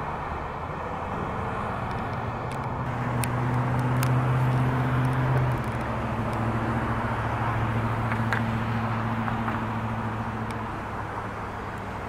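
Road traffic: motor vehicles passing, their low engine hum swelling a few seconds in and again in the middle, then fading near the end over a steady background rumble.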